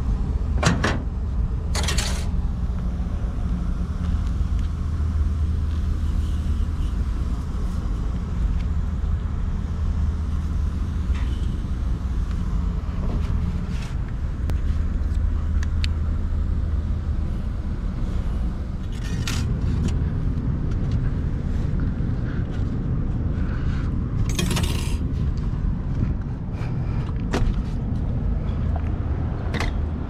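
Steady low mechanical hum of rooftop HVAC equipment running, with a few short clicks and rattles of tools being handled.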